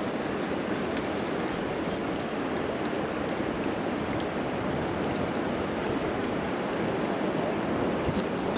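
Steady rushing of a river's current flowing past a rocky bank, an even wash of water noise.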